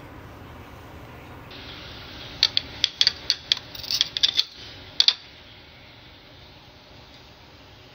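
Metal knife and tongs clicking and tapping against a plate while a steak is cut in half: a quick run of sharp clicks starting about two and a half seconds in and ending with two more about five seconds in, over a low steady background hum.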